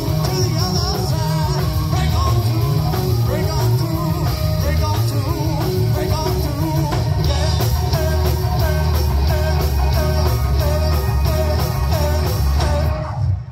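Live rock band playing at full volume: electric guitars, bass and drums, with a gliding lead line over them. The music ends abruptly near the end.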